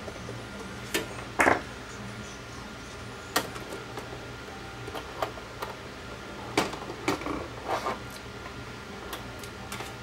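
Scattered sharp clicks and light knocks from hands working the plastic tonearm and cueing-lift mechanism of a JVC AL-A151 turntable while the cueing lift is adjusted, over a steady low hum.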